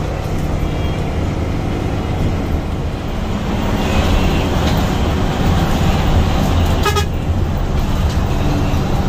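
Hino AK8 bus engine running steadily under way, heard from inside the driver's cab, a little louder from about four seconds in. A short horn toot sounds about seven seconds in.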